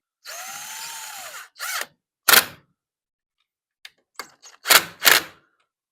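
Hand work on the plastic and rubber parts of a Weed Eater LT7000 string trimmer during reassembly of its fuel line: a squeaky scrape about a second long, a short rasp, then a few sharp clicks, the loudest two close together near the end.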